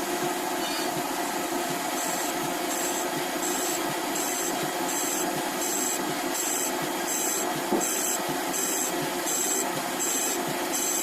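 CNC machine running steadily. From about two seconds in, a high-pitched tone pulses on and off in an even rhythm, about one and a half times a second.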